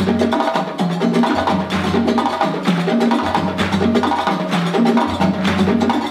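Djembe and dundun drum ensemble playing a fast West African rhythm. Sharp, quick hand strokes run over a repeating pattern of deep bass drum tones.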